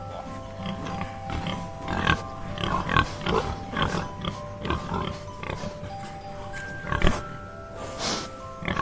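Repeated short, irregular animal calls over soft background music of held, chime-like notes.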